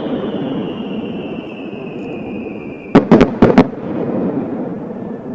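Aerial fireworks: a quick cluster of about five sharp bangs about three seconds in, over a steady rumble of echoing bursts.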